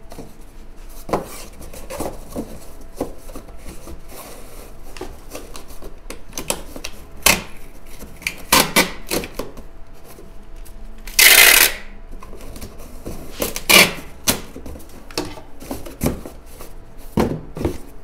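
Cardboard shipping box being folded and handled, with repeated knocks and creases of the flaps, and brown packing tape pulled off a handheld tape dispenser in a loud half-second rip about two-thirds of the way through.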